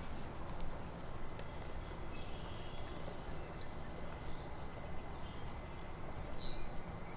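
Quiet open-air ambience with a low background rumble. In the second half, small birds give a few short high-pitched chirps and a brief trill, then a louder falling chirp near the end.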